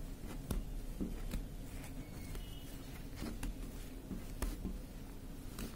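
Hands handling a silk bandhani saree with thread-tied knots: faint rustling of the cloth with scattered soft clicks, over a low steady hum.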